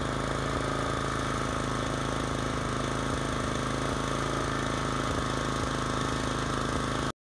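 Commercial stand-on lawn mower's engine running steadily while mowing, an even drone that cuts off abruptly near the end.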